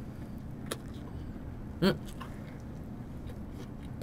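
A person chewing a mouthful of soft toast, with small mouth clicks over a steady low background hum, and one short voiced 'mm' about two seconds in.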